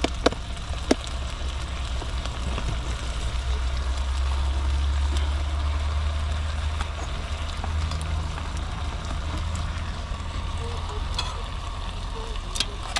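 Gammon steaks sizzling in a Trangia frying pan over its burner, under a steady low rumble. A few light metal clicks come near the start, and a small clatter near the end as a metal plate is set on the pan as a lid.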